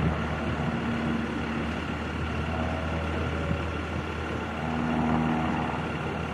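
Piston engine and propeller of a small high-wing light plane running steadily as it flies low and climbs away, swelling slightly about five seconds in.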